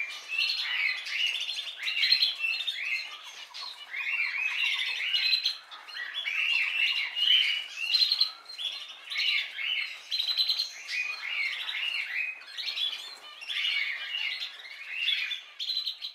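Many birds calling at once: a dense, continuous chatter of overlapping short chirps and squawks.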